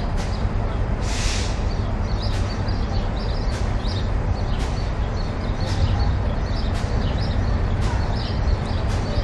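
Small birds chirping again and again over a steady low rumble, with a short hiss about a second in.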